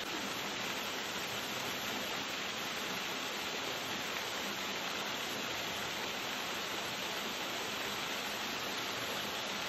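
Small waterfall splashing steadily into a pool, an even rushing of water.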